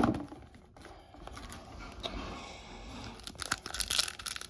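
Foil booster-pack wrappers crinkling and tearing as they are handled. There is a sharp knock right at the start and a busier run of crinkling near the end.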